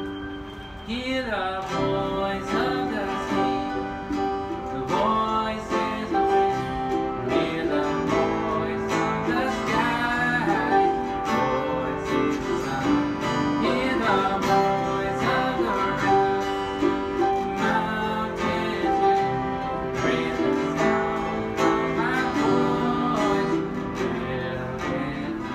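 Live acoustic band playing a song: a man singing into a microphone over strummed acoustic guitar and ukulele, with piano.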